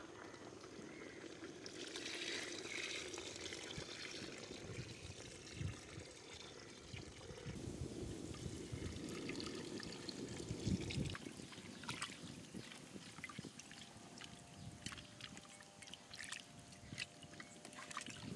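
Water being poured into the pot of chicken curry: a faint trickling, splashing pour. In the second half it gives way to scattered light clicks and knocks.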